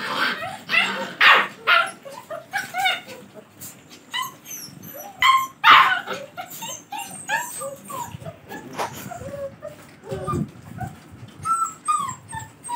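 Rottweiler puppies yipping and whimpering in many short overlapping calls, with a few louder barks in the first two seconds and again about six seconds in.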